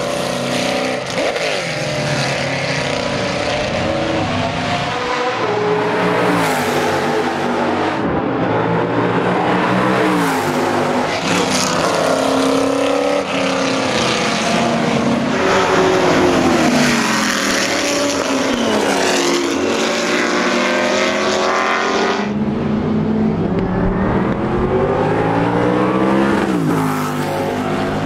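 Lola T70 Mk3B race cars' 5-litre Chevrolet V8 engines at racing speed, one car after another through a corner. The engine note climbs and then drops back again and again as they shift gears, lift and accelerate away.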